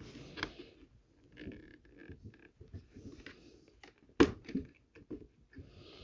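Faint clicks and rustles of hard plastic parts being handled and fitted on a 2013 Mercedes-Benz C300's interior door panel as a replacement door handle piece goes on. One sharper click about four seconds in, as a part snaps into place.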